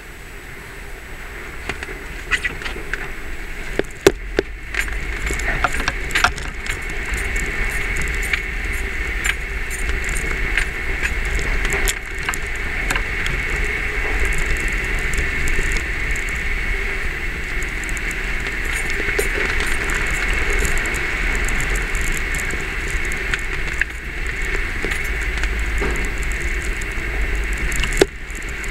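Jeep running slowly over rough, rocky ground, heard from inside the cab: a steady engine and drivetrain rumble. Throughout there is a rapid, irregular chattering of a camera tapping against the windshield.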